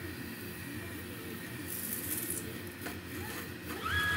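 Stepper motors of a delta 3D printer converted into a CNC flat coil winder, whining in rising and falling pitches as the head moves fast laying copper magnet wire, with two short spells of hiss. Near the end a higher whine rises, holds and drops as the head moves off quickly.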